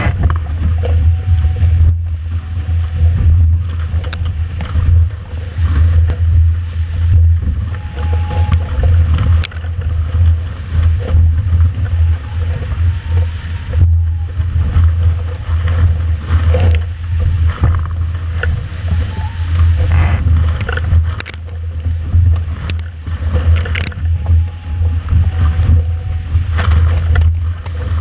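Wind buffeting the microphone of a camera on a Formula 18 catamaran sailing fast, over rushing water along the hulls. Now and then bursts of spray slap the boat and lens.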